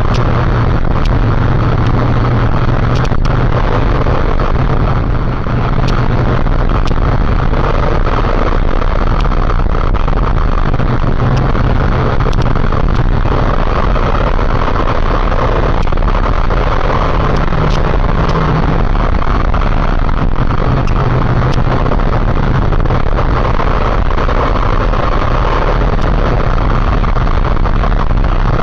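Motorcycle riding along at steady speed: an even engine drone under a loud, constant rushing noise.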